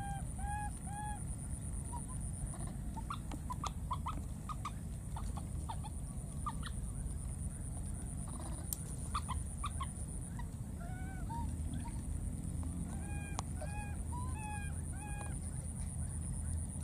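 Infant macaque giving short calls that rise and fall in pitch, in runs of three to five, about two a second, at the start and again after about eleven seconds, with soft clicks scattered between. A steady high-pitched buzz runs underneath.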